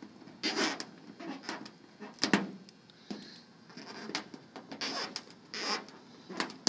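Fingers picking and peeling leftover PDR hot-melt glue off a painted car hood: irregular small clicks and short scratchy rubs, with a few louder scrapes spread through.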